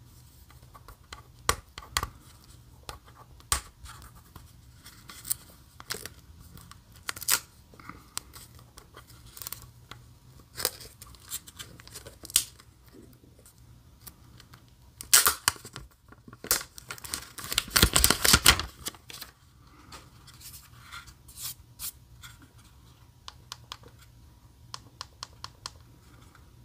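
Hands handling a small plastic smart speaker and its packaging: scattered light clicks and rustles, with a loud tearing, crinkling rush about fifteen seconds in and a longer one about eighteen seconds in, like protective plastic film being peeled off.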